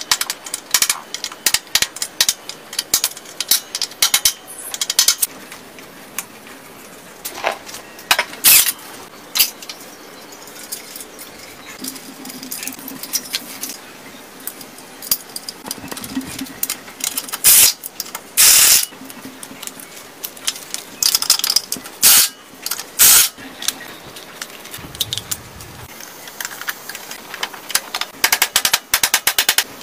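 Hand tools and loose metal parts clinking, tapping and rattling in irregular bursts while a motorcycle's front fork and triple clamp are worked on by hand, with a few longer, louder noisy bursts a little past halfway.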